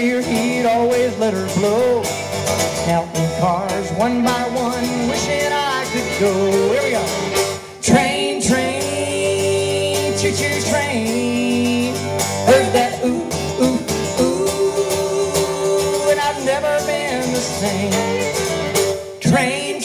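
Live acoustic performance of a song: a man and a woman singing together over a strummed acoustic guitar. The music dips briefly about eight seconds in and again near the end.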